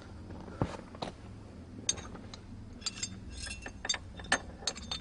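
Scattered small metallic clicks and clinks as a short shifter is handled and fitted into a car's shifter housing, the clicks coming thicker in the second half.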